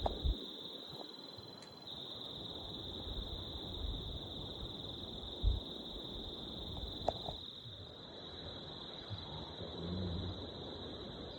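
A steady high-pitched insect trill, like crickets, runs without a break, with a few soft low thuds and a sharp click about seven seconds in.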